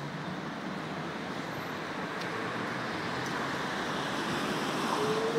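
A Schindler Waggon Be 4/6 articulated tram rolling past, its running noise growing louder as it comes closer, with a short rising whine near the end.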